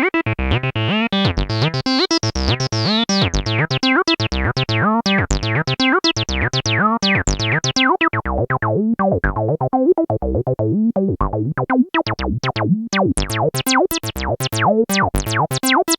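Roland TB-03 bass synthesizer playing a fast sequenced bassline while its filter knobs are turned, making the chirping acid squelch. The brightness sweeps up and down, and from about twelve seconds in the sound opens up much brighter and sharper.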